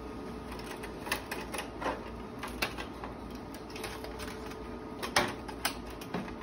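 A Storz sterilization container being opened: scattered clicks and clacks from its latches and perforated metal lid as the lid is lifted off, the loudest clack about five seconds in.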